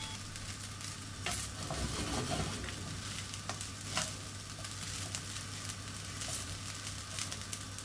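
Cooked rice frying in a nonstick pan over a low gas flame, sizzling as it is stirred and tossed with a silicone spatula, with scattered light scrapes and taps of the spatula against the pan.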